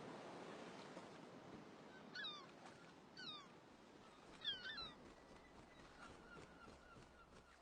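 Faint high-pitched chirping calls, three short bursts, the last the loudest, over a low background hiss.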